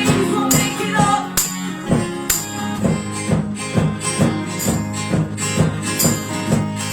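Acoustic guitars strumming an instrumental passage of a folk-rock song, with sharp percussive hits keeping a steady beat.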